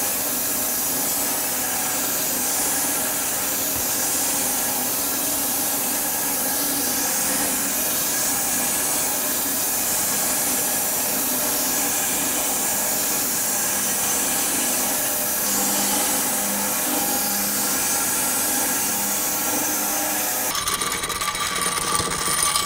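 Homemade bandsaw mill running, its band blade sawing lengthwise through an elm log: a steady machine drone with the hiss of the cut. The sound changes about two seconds before the end, then cuts off suddenly.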